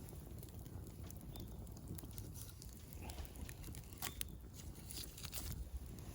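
Small wood fire crackling faintly, with scattered sharp pops at irregular moments, the clearest about four seconds in, over a low rumble.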